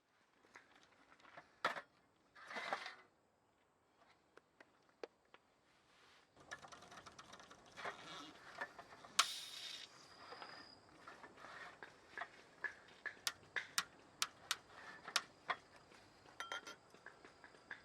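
Scattered small clicks and knocks of objects being handled, with two brief rustles, one about two seconds in and one near the middle, and a run of sharper clicks in the second half.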